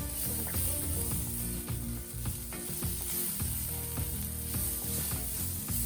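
Fried onions and ginger-garlic paste sizzling in hot oil in a large pan, with a spatula scraping and clicking against the pan as they are stirred.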